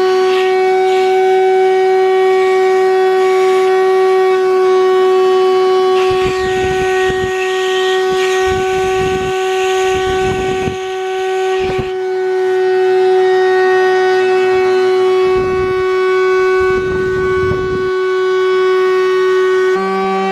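Shop-Vac wet/dry vacuum running with its hose nozzle held at a capuchin monkey's mouth. Air pulled through the partly blocked nozzle makes a steady droning tone with overtones. Several bouts of low rushing noise come and go partway through as the airflow at the nozzle is disturbed, and just before the end the tone changes and a lower tone joins it.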